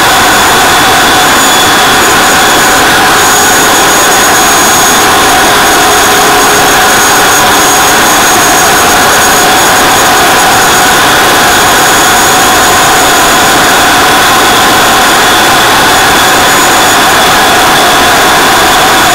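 Small jet engine at the back of a bike, running steadily and very loud while the bike cruises. A high whine holds one pitch over the rushing noise of the exhaust.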